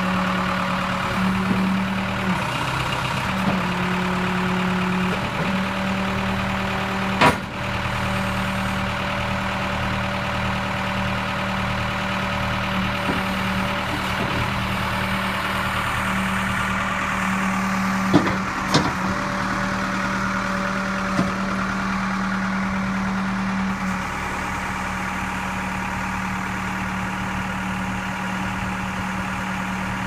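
1999 Case 580L backhoe loader's four-cylinder diesel engine running steadily as the machine is worked. A few sharp clanks break through, the loudest about seven seconds in and two more around eighteen seconds.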